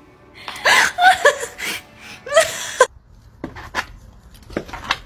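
A woman laughing in several loud bursts for about two and a half seconds. This is followed by a few faint, sharp clicks.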